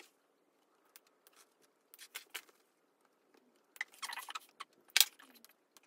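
Small scissors snipping into fabric a few times, short sharp cuts with light handling rustle between them. The sharpest snip comes about five seconds in.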